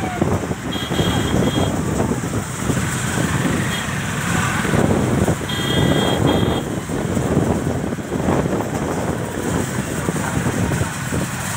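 Motor vehicles running close by with a loud, steady rushing noise and wind on the microphone, with short high horn beeps about a second in and again around six seconds in.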